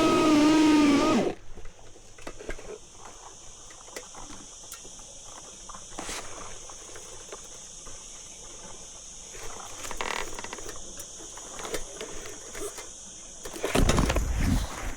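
Cordless battery chainsaw's electric motor running at a steady high whine, then cutting off suddenly about a second in. Scattered light clicks and rustling follow, with a louder noisy burst near the end.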